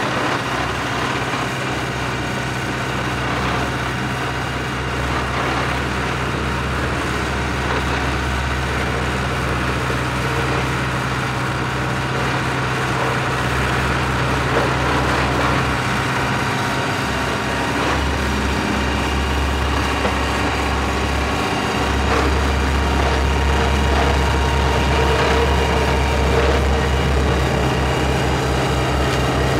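Four-wheel-drive vibratory roller running, its engine holding a steady hum while a deeper rumble cuts out and returns several times.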